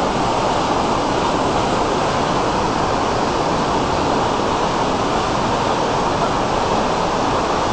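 Loud, steady rushing of a huge waterfall: a continuous even wash of falling water.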